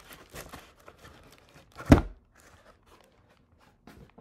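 Packaging being handled: the plastic wrapping around a bundle of paperwork crinkles and rustles against a moulded pulp packing insert, with one sharp thump about two seconds in.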